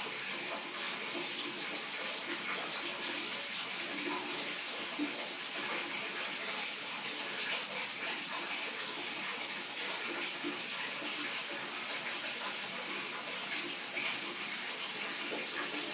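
Steady rush of running water, like a tap running into a basin.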